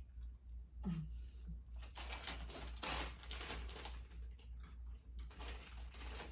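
Plastic crisp packet crinkling and crackling as it is handled, in irregular rustling bursts from about a second in.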